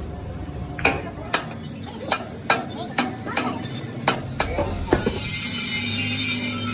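Irregular sharp metal-on-metal taps and clinks, about ten of them, as hand tools work on metal parts. About five seconds in, a power tool starts running steadily with a hissing, grinding noise.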